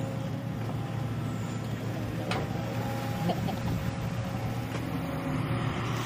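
Diesel engine of a Hitachi Zaxis 210F amphibious excavator running steadily while the boom works the bucket, with one sharp knock about two seconds in.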